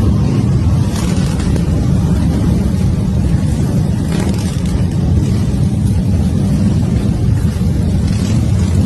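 A large pack of touring and cruiser motorcycles riding slowly past together, their many engines running in a loud, steady, deep din.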